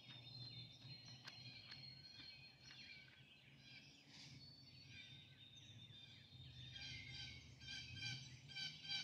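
Near silence with faint bird calls. A run of quick, repeated chirps comes near the end, and a few faint clicks fall in the first two seconds.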